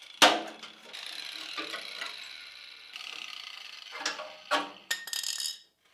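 A metal hand tool scraping and knocking against a Land Rover's steel chassis rail. A sharp click comes just after the start, then a few seconds of grating scrape, then several separate knocks near the end.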